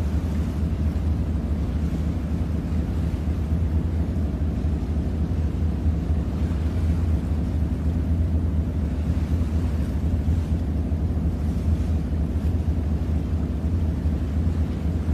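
Steady low engine rumble of a harbour ferry, heard on board.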